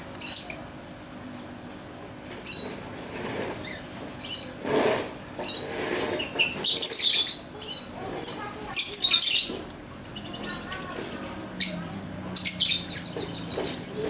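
Lovebirds chattering: repeated bursts of high, rapid chirping and twittering, busiest in the second half. A brief scratchy noise comes about five seconds in.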